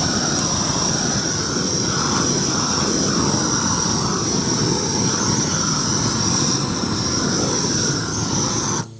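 Propane weed torch burning weeds at full flame: a steady rushing noise that cuts off abruptly near the end.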